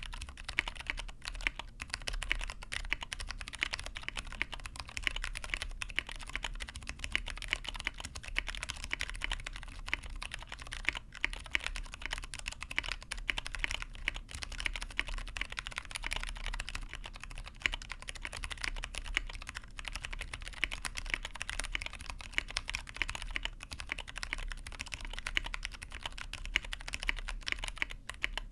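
Steady, fast typing on a Tofu65 mechanical keyboard with lubed Cherry Clear tactile switches, an aluminum plate and ePBT keycaps: a continuous stream of keystroke clicks.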